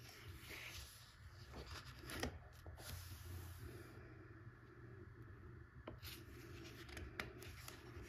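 Colouring-book pages being turned by hand: faint paper rustling and page flips, with a sharper flick about two seconds in and a few more near the end.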